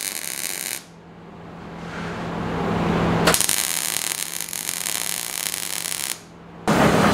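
Wire-feed (MIG) welder arc crackling as a steel rod handle is welded onto a punch: one bead ends about a second in, a second weld runs for about three seconds from the middle, with a steady low hum underneath. A different steady rushing noise cuts in near the end.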